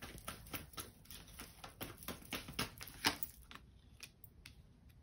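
Tarot cards being handled on a table: a run of light, uneven clicks and taps, the loudest about three seconds in, then thinning out.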